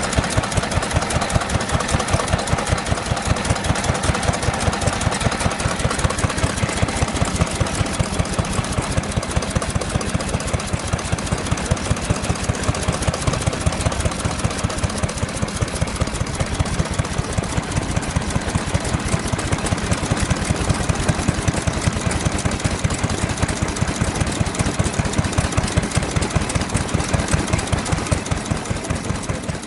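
Early-Showa Kubota type F stationary engine running steadily, each firing stroke a sharp exhaust beat in an even, unchanging rhythm.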